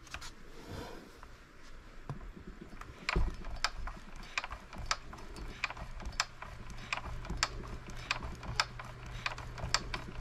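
Small model hit-and-miss engine being turned over slowly by hand at the flywheel, its gears and mechanism giving a run of sharp clicks, roughly two a second, from about three seconds in.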